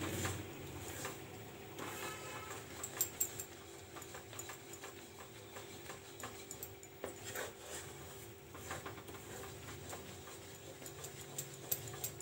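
Wooden spatula stirring and scraping a thick, bubbling cashew paste in sugar syrup around a nonstick pan, with many small irregular clicks and scrapes over a faint steady hum.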